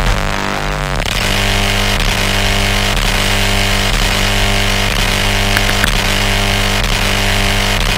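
Music: a loud, buzzing distorted drone held on steady pitches, shifting once about a second in and then holding.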